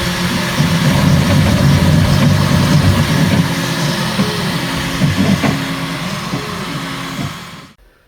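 Bambu Lab X1 Carbon 3D printer printing: its stepper motors hum in tones that shift up and down in pitch as the head moves, over a steady hiss. The sound cuts off abruptly near the end.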